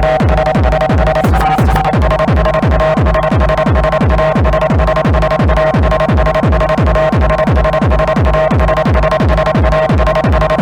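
Techno playing loud: a steady kick drum at about two beats a second, each kick falling in pitch, under held synth tones that shift about two seconds in.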